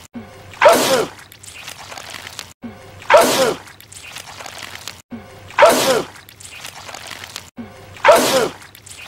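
A man sneezing, the same sneeze repeated four times about every two and a half seconds, each a sudden loud burst with a falling cry.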